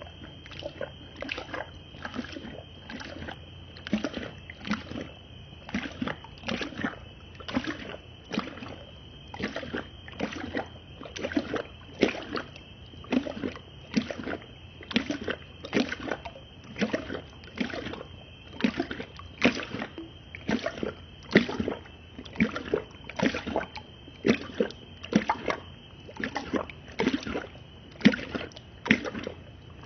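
A dog lapping water from a plastic bucket, a regular train of wet splashy laps at about three every two seconds, slowed down in slow-motion playback.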